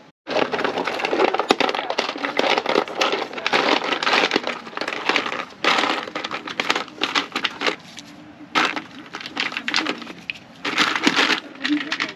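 Rummaging through a van's drawer of tools and small packaged parts: a dense, irregular clatter of knocks and clicks mixed with crinkling packaging, dropping away briefly around eight seconds in before picking up again.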